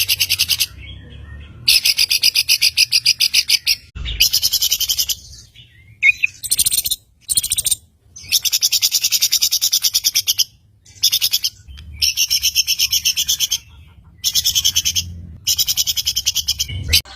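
Songbird song from a masteran training recording: rapid, evenly pulsed high chirping trills in phrases of one to two seconds, broken by short pauses.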